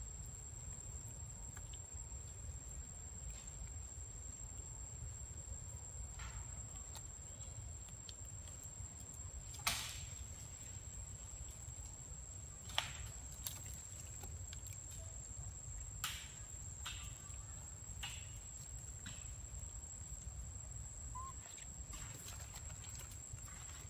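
Forest ambience: a steady high-pitched insect drone over a low rumble, with about ten short sharp clicks and snaps scattered through it, the loudest about ten and thirteen seconds in.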